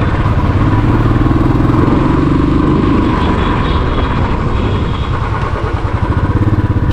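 Motorcycle engine running steadily under way, with wind rushing over the helmet-mounted camera's microphone.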